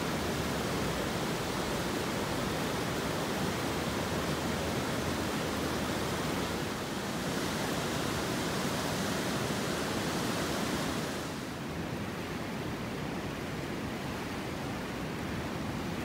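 Steady rush of the Katsura River running over shallow rapids below Togetsukyo Bridge, an even hiss of moving water. The hiss softens a little about eleven seconds in.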